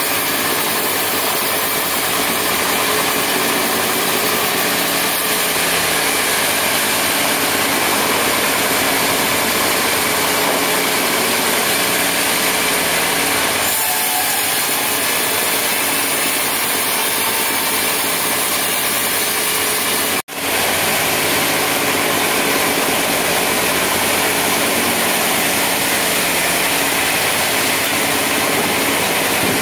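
Large band sawmill running and sawing teak into boards: a loud, steady machine noise with the blade cutting through the wood. The noise changes slightly about halfway through and drops out for an instant about two-thirds of the way through.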